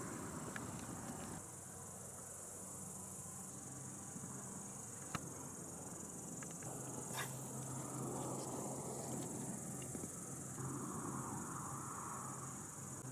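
Insects chirring in a steady, high, continuous buzz, with two short faint clicks about five and seven seconds in.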